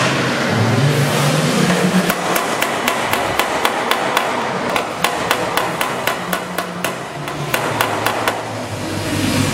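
A hand hammer striking repeatedly and evenly, three or four blows a second, beginning about two seconds in and stopping near the end: a panel being hammered to shape over a wooden fender-forming jig. A steady workshop hum runs underneath.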